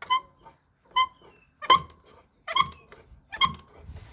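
Door hinge of a Hoover Softwave Autowasher A0113 washing machine squeaking as the door is swung, five short high squeaks about one every second. It is very squeaky for no reason the owner knows.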